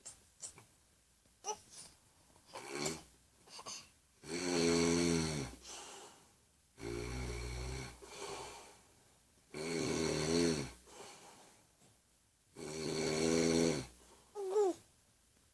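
A man snoring heavily: four long, rasping snores, one every two to three seconds. Near the end there is a brief high squeal from a baby.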